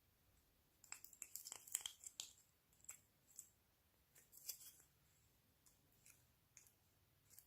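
Faint sticky clicks and crackles of slime being squished and worked by hand, in a quick cluster about a second in and scattered pops after.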